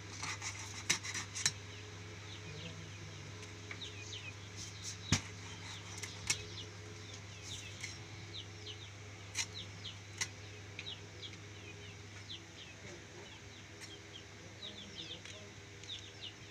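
Birds chirping over and over in short falling calls, with a few sharp knocks now and then, the loudest about five seconds in.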